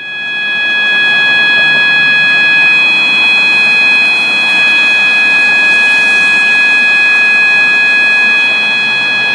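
System Sensor MA/SS-24 fire alarm horn sounding its steady 800 Hz tone, one loud unbroken electronic note with a hissy background. It swells up over about the first second, then holds level. The building's fire alarm system is in alarm.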